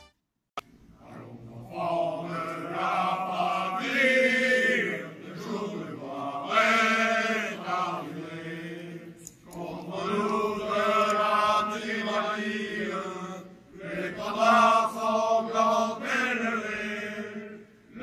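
Voices singing together in chorus, slow held phrases with short breaks about every four seconds, beginning about half a second in.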